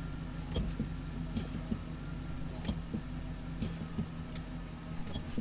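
2009 Chevrolet Silverado pickup's engine idling steadily, with scattered light clicks and ticks over it.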